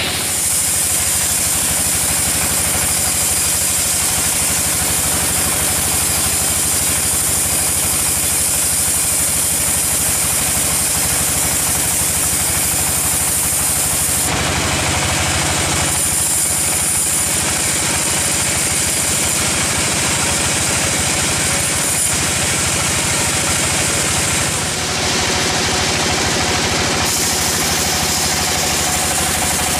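Band sawmill running: a steady machine drone as the blade cuts through a log, the sound shifting abruptly several times.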